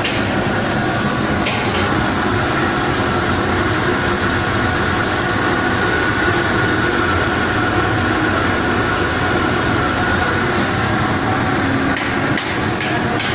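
Steady machine running noise with a faint steady whine through it, and a few sharp metallic knocks about a second and a half in and again near the end.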